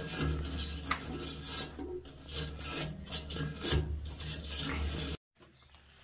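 Wire fitting brush scrubbing the inside threads of a threaded pipe fitting, clearing out old Teflon tape and pipe dope: irregular rasping, scraping strokes that cut off suddenly about five seconds in.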